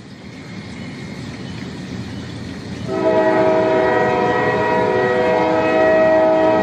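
Approaching train with a rumble that grows louder. About three seconds in, its horn starts sounding a steady chord of several notes at once.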